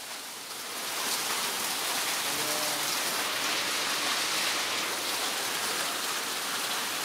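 Heavy rain mixed with small hailstones pelting the ground and surfaces, a dense steady hiss that grows louder about a second in.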